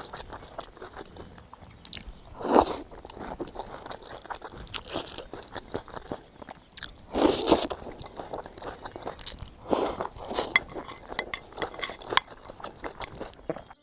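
A person eating close to the microphone: steady chewing with small crunches, and three louder crunching bites.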